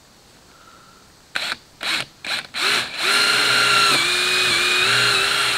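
Cordless drill working into the boat's deck: four short trigger bursts, then a steady run of about three seconds whose pitch sags slightly under load.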